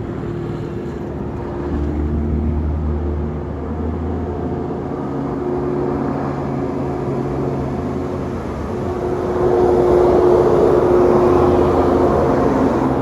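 Bus 'telolet basuri' melodic horn playing sustained, flute-like notes that change pitch, over the rumble of the bus's engine. It grows louder from about nine seconds in.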